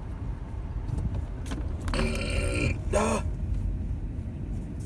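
A person belching for nearly a second, about two seconds in, followed by a short second sound with a wavering pitch, over the steady road rumble inside a moving car.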